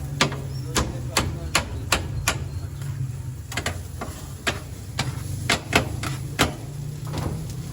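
Knife chopping shawarma chicken on a cutting board: a quick run of sharp knocks, two or three a second, with a short pause about three seconds in, over a steady low hum.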